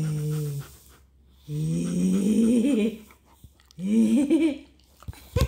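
Large dog making three drawn-out, low grumbling moans, the middle one the longest and wavering in pitch. A sharp click near the end.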